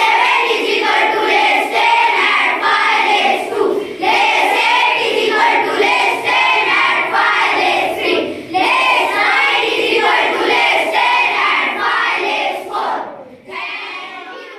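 A group of children singing together in unison, in phrases with short breaks between them, fading away near the end.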